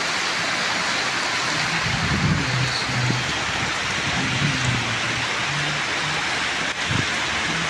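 Heavy rain falling steadily, an even, dense hiss of drops, with irregular low rumbles underneath.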